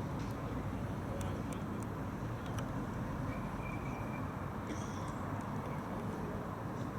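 Steady outdoor murmur of a large waiting crowd with street noise behind it, a few faint clicks and a brief high tone about halfway through.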